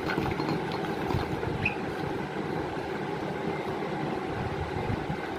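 A steady low mechanical rumble throughout. In the first two seconds, foil-wrapped chocolates tumble onto a cut-glass tray with a few light clicks and one short glassy ping.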